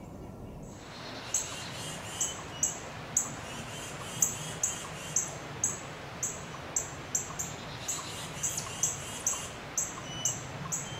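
Small woodland birds calling: a short, sharp, high chirp repeated about twice a second, with fainter quick twittering notes in between.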